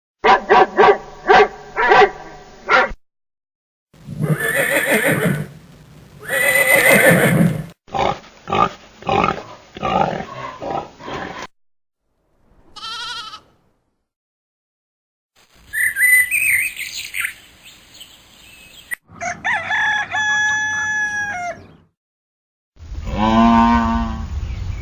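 A run of different farm animal calls, one after another, each a separate short recording with brief silences between them.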